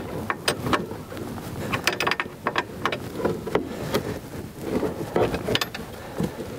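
Metal wrench clicking and clinking on the jam nut of a Polaris snowmobile's chain case tension bolt as the nut is tightened back up: a string of irregular sharp metal clicks, several close together about two seconds in.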